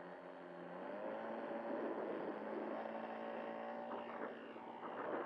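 Laser 200 in-line twin four-stroke glow engine on a model aircraft opening up to full throttle for takeoff. Its pitch rises about a second in, then it runs steadily as the plane accelerates and climbs away, the sound growing louder.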